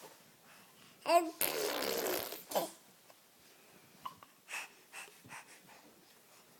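A dog makes a short whining call, then at once a loud raspy blowing snort about a second long, with a brief whine after it. A few faint short sounds follow.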